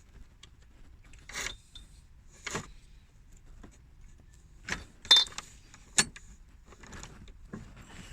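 Scattered metallic clinks and scrapes from a water pump and its bolts being worked into place on the engine, with a sharper clink about five seconds in and another about six.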